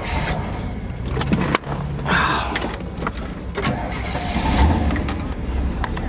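Keys jangling and clicking with handling noise, over a steady low rumble.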